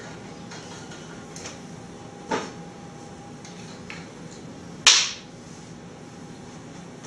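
Glass liqueur bottles and a steel jigger being handled on a tabletop bar: a few sharp knocks and clinks, the loudest about five seconds in and another just after two seconds, with fainter clicks between. A faint steady hum lies underneath.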